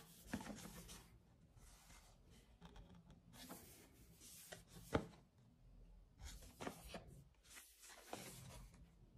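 Faint rubbing and scuffing of a small cardboard earbud box being turned over in cloth-gloved hands, in several short bursts, with one sharper tap about five seconds in.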